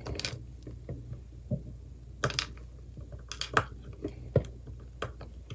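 Scattered small clicks and taps of ice cubes and fingers on a silicone pop-it fidget toy as the frozen cubes are handled and pushed back into its bubbles.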